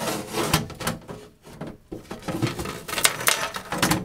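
Metal instrument case being slid and tipped up off its chassis: irregular metal knocks, clicks and scraping as the case rubs against the chassis.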